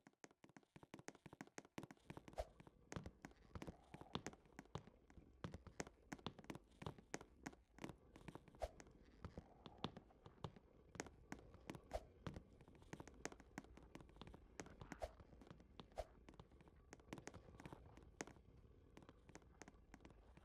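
Faint, irregular clicks and taps, several a second, over a low steady hum that comes in about two seconds in.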